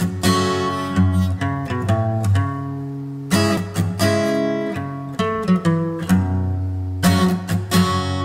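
Acoustic guitar strumming chords in a rock song's instrumental intro, with sharp strums every second or so and the chords left to ring between them.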